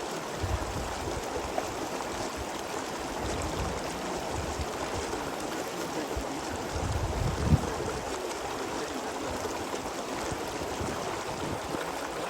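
Steady rushing of a flowing stream. Wind buffets the microphone in a few low rumbles, the strongest about seven and a half seconds in.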